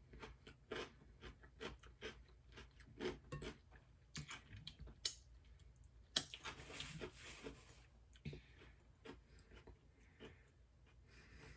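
Faint, close-miked chewing of food, with irregular wet mouth clicks and smacks. About six seconds in comes a louder noisy crunch lasting about a second and a half.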